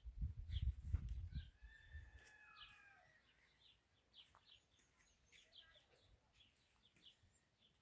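Faint outdoor ambience of small birds chirping, short high chirps repeating about twice a second. A distant rooster crows once, a drawn-out call that falls at its end about a second and a half in. A low rumble on the microphone is loudest in the first second and a half.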